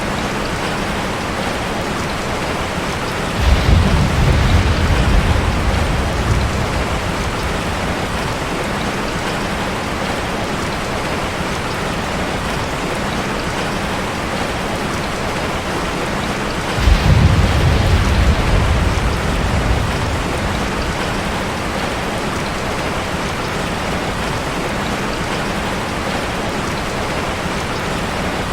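Steady rain falling on a village street, a constant even hiss. Two low rolls of thunder come in suddenly, about three seconds in and again about seventeen seconds in, each fading away over a few seconds.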